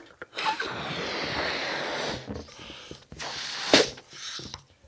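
A party balloon being blown up by mouth: a long breath blown into it, then, after a pause, a shorter and louder blow a little after three seconds in.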